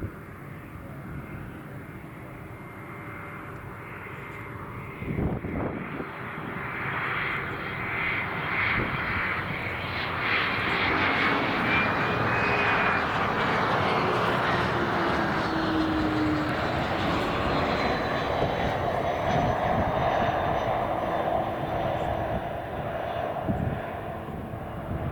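Business jet's turbofan engines growing louder over about ten seconds, then running loud, with a high whine that rises and then falls in pitch as the jet passes. A short thump about five seconds in.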